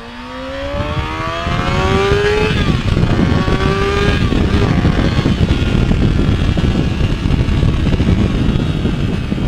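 Motorcycle engine accelerating hard, its pitch rising and dropping at two gear changes within the first few seconds. Then loud wind rush on the microphone from the speed takes over.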